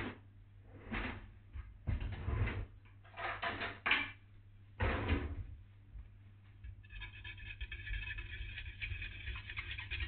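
Several short handling sounds, then from about seven seconds in a wire whisk stirring milk powder into water in a stainless-steel saucepan: a fast, steady ticking of the wires against the metal pan.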